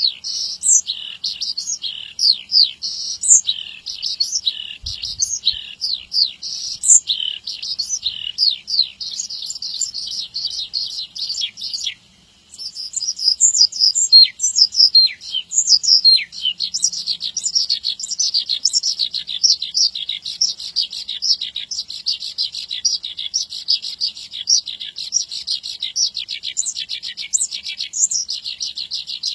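Horsfield's bush lark (branjangan) singing a rapid, continuous stream of high chirps, trills and mimicked notes, with a brief break about twelve seconds in.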